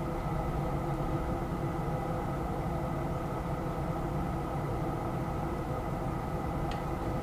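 Steady hissing rumble of a lantern's burner, with a faint click near the end.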